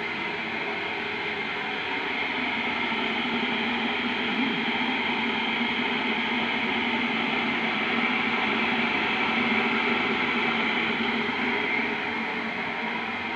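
Steady rushing background noise with a faint hum, swelling slightly in the middle and easing off near the end.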